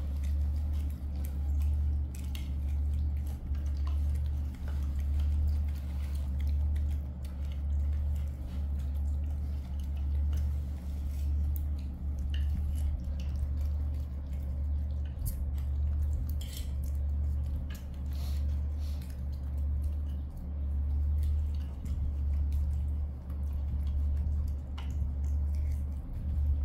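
A steady low hum with scattered light clicks and taps of a metal fork against china plates as young monkeys are hand-fed noodles.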